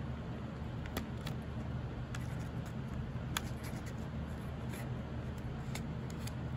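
Paper pinwheel blades being handled and pressed onto the centre pin, giving scattered small crinkles and clicks over a steady low hum.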